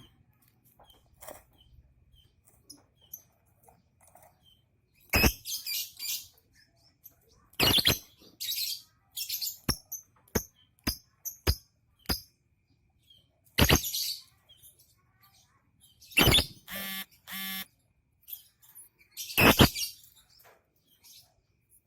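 A pet bird chirping softly in short high notes, broken by about five loud sudden thumps and scuffles and a brief buzzy squawk about three-quarters of the way through.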